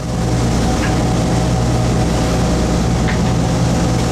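A large fishing boat's engine running with a steady low hum, over a loud rush of wind and rough water along the hull.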